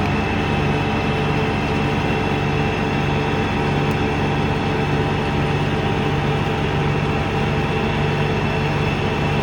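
Excavator's diesel engine running steadily, an even, unbroken engine drone.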